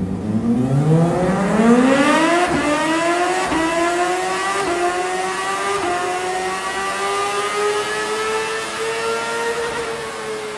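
CFMOTO sport motorcycle's exhaust under hard acceleration: the engine note climbs steeply for the first couple of seconds, then goes through several quick upshifts, each a small step in pitch, and keeps rising more slowly before easing off near the end.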